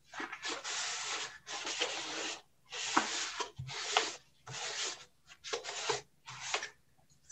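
Wad of paper towel rubbed back and forth across a cardboard work surface, wiping up leftover shaving cream, in about seven scrubbing strokes.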